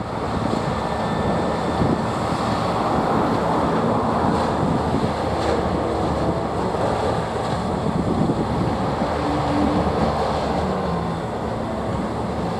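Heavy diesel trucks running, a steady low engine noise with no break.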